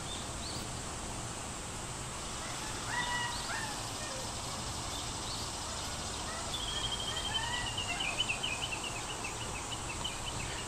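Birds chirping in a backyard garden over a steady outdoor background: a few short separate calls, then a quick run of repeated chirps from a little past the middle.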